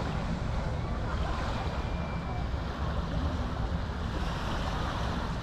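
Wind buffeting the microphone outdoors: a steady, uneven low rumble over a wash of outdoor noise.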